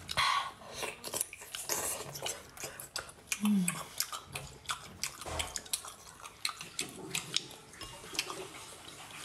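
Close-up eating sounds: wet chewing and slurping of a piece of seafood dripping with chili oil, full of sharp mouth and utensil clicks, with a short hummed "mm" about three and a half seconds in.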